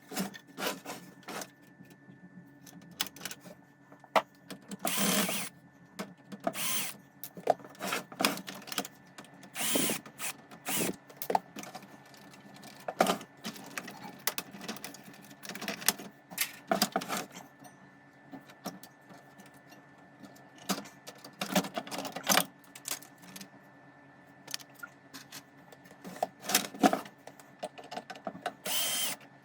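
Hands-on work on a hi-fi stereo unit during restoration: irregular clicks, taps and rattles of parts and screws being handled, broken by short bursts of a small tool running, about eight of them, each under a second.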